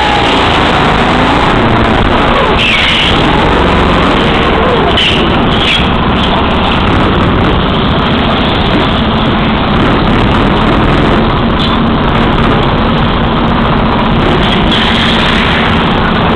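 Go-kart engine running hard through a lap of an indoor track, recorded by a camera riding on the kart: loud, steady and rough, with no clear pitch.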